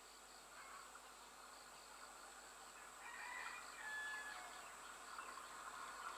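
Faint outdoor ambience: insects chirping in a steady rhythm, with a bird's crowing call about three seconds in. Near the end the noise of the approaching EMU electric train begins to rise.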